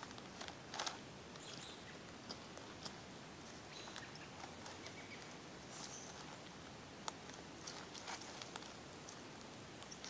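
Faint scattered clicks and soft wet handling sounds of a deer carcass being field-dressed by hand with a small multi-tool. A few sharper clicks stand out, about a second in and just after seven seconds.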